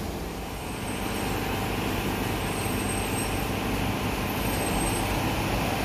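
Tour bus on the move: a steady engine drone under an even rush of road noise.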